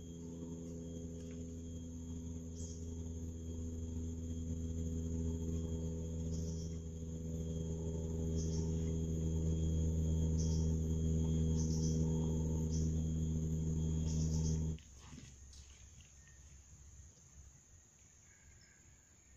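Engine of a boat passing on the river, a steady low drone growing louder as it approaches, under a high insect whine. The drone cuts off suddenly about fifteen seconds in, leaving a quiet riverbank background.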